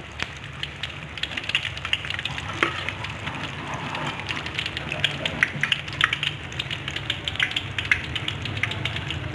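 Mini tofu-and-egg martabak in spring-roll wrappers deep-frying in hot oil in a wok: dense, irregular crackling and popping of the oil, over a low steady hum.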